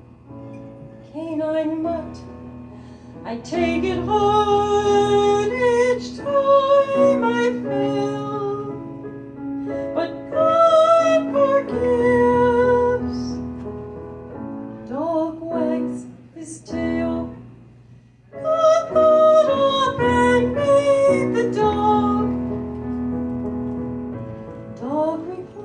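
A woman singing, accompanied on an electric keyboard with a piano sound. She sings in held phrases separated by brief pauses.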